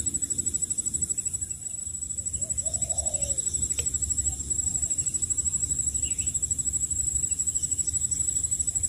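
Outdoor ambience: a steady, high-pitched insect trill pulsing rapidly, over a low rumble, with a few faint bird coos about three seconds in.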